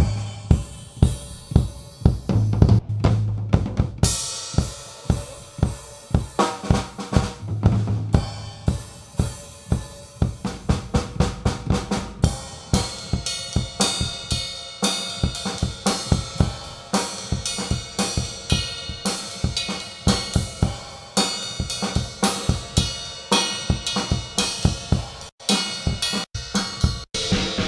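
Acoustic drum kit played live in a steady groove, with kick drum, snare, hi-hat and cymbals. Near the end the sound cuts out for a split second a few times.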